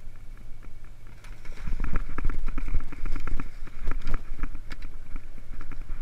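Steady low engine hum of a party boat, with wind buffeting the microphone and irregular knocks and splashes that grow louder about a second and a half in.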